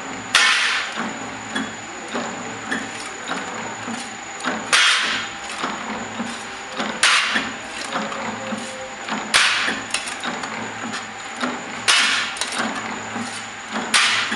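Mechanical power press cutting fan-blade blanks from sheet metal: a harsh stroke about every two and a half seconds, six in all, over the machine's steady running noise and a constant high whine.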